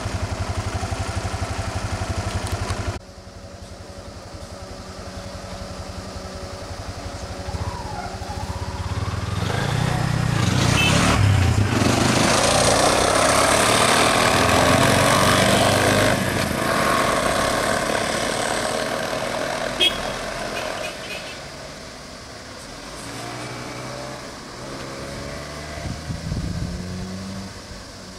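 A vehicle engine idling with an even, rhythmic beat, cut off abruptly about three seconds in. Then a bus engine builds up and runs loud for several seconds as the bus pulls away, fading over the last part, with a single sharp click partway through.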